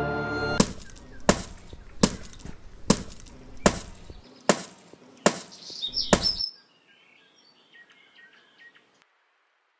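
A brick striking something hard over and over: eight sharp blows, a little under a second apart. Faint bird chirps follow near the end.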